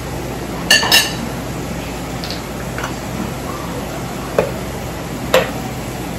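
Kitchen utensils and dishes clinking: two ringing clinks about a second in, then two sharper knocks near the end, over a steady low hum.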